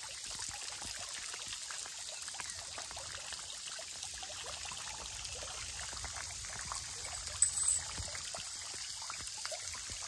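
Garden fountain: a jet of water spraying up from a gourd-shaped spout and falling back into the basin, a steady splashing trickle. A brief high-pitched chirp sounds about three-quarters of the way through.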